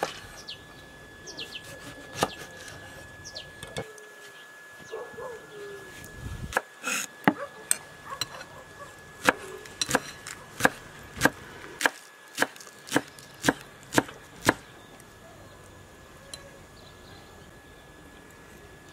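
Chef's knife chopping green onions on a wooden cutting board: a run of about a dozen sharp knocks, about two a second, from about nine to fourteen and a half seconds in, after a few scattered knife cuts earlier.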